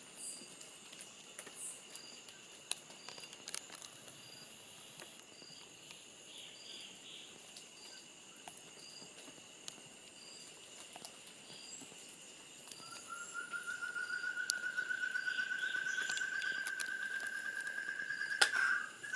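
Tropical forest ambience: a steady high insect drone with soft pips about once a second. About two-thirds of the way in, a loud fast trill starts and climbs slowly in pitch for some five seconds, and a sharp click comes near the end.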